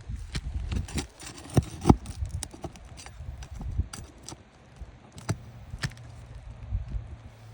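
Irregular taps, knocks and scrapes of hand tools working asphalt roof shingles loose, with one sharper knock about two seconds in.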